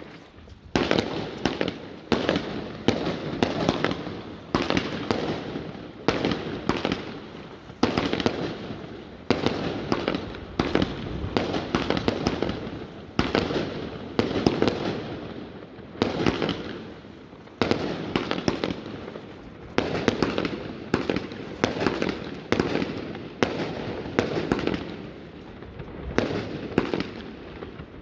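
Ground-launched consumer firework battery (cake) firing one shot after another, about one launch every second or so. Each shot starts with a sharp report and trails off over about a second.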